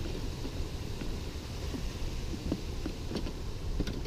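Steady low outdoor rumble with scattered light clicks and scrapes as a cat is pushed into a hard plastic pet carrier.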